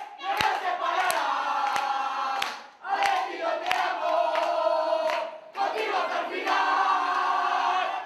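A crowd chanting in unison in sung phrases, with rhythmic handclaps about every three-quarters of a second.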